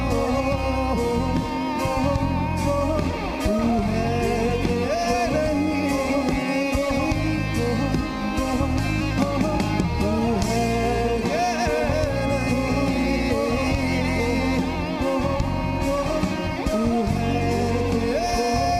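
Live band playing an instrumental passage of a Hindi pop ballad: drum kit with cymbals and guitar, with a wordless vocal line over the music.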